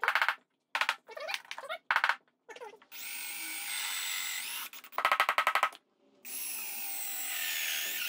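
Porter-Cable 20V cordless drill boring into the edge of a wooden board. It runs in two long steady stretches, its pitch dropping as it slows and rising again as it speeds up. Short bursts of rapid rattling clicks come in between.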